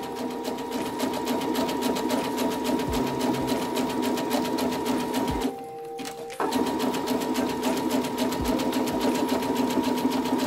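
Electric domestic sewing machine stitching oilcloth at a steady speed, the needle beating in a fast, even rhythm. It stops for about a second around the middle, then starts again.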